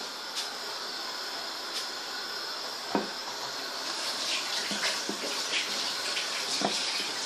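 Sugar syrup at a rolling boil in a cooking pot, a steady bubbling hiss, with a few soft plops and knocks as chhena balls for rasgulla are slipped in.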